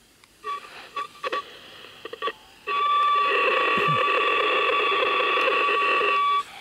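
Spirit Box radio scanner sweeping through stations: a few short bursts of static and clipped radio sound, then about two and a half seconds in a loud steady tone with several pitches, held for about three and a half seconds before it cuts off suddenly.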